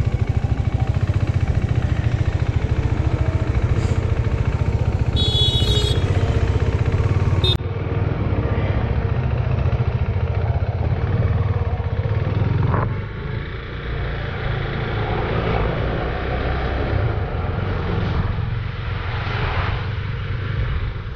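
KTM RC 390's single-cylinder engine running as the motorcycle is ridden through traffic, a steady low rumble with wind and road noise.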